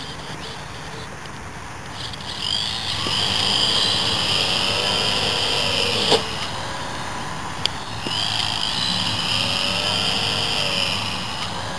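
Small RC model airplane's electric motor and propeller whining at a high pitch, spinning up about two seconds in. About six seconds in a sharp thump, as the plane strikes the grass, and the whine cuts off at once. A click follows, then the motor spins up again a little after eight seconds in and runs steadily until just before the end.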